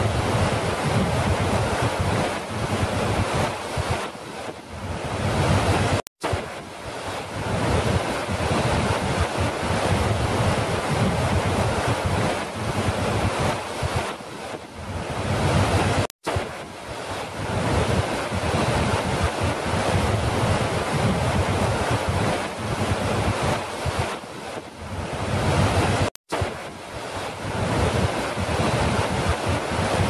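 Large waterfall pouring over a rock ledge: a dense, steady rush of falling water. It cuts out for an instant three times, about every ten seconds, where the recording loops.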